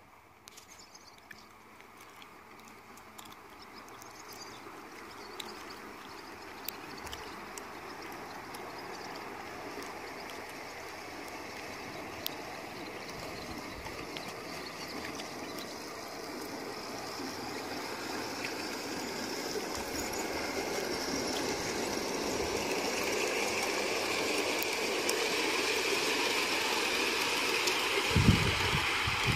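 Gauge 3 model trains running on the track: a steady rolling noise of wheels on rail that grows steadily louder as the trains come close. There is a single dull thump near the end.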